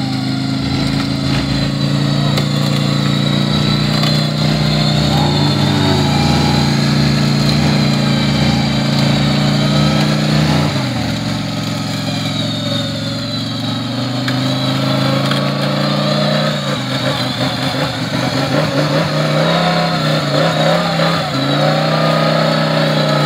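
Side-by-side UTV's engine running hard at high revs as it pushes through deep mud. The pitch holds steady, dips about eleven seconds in, then rises and falls unevenly toward the end.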